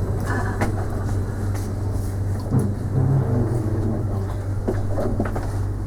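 Edinburgh tram, a CAF Urbos 3, heard from inside the passenger cabin while running between stops: a steady low hum with even running noise.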